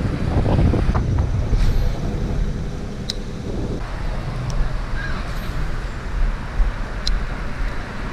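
Road traffic passing on the street next to the pond, with wind buffeting the microphone; a vehicle's engine hum is heard for the first few seconds.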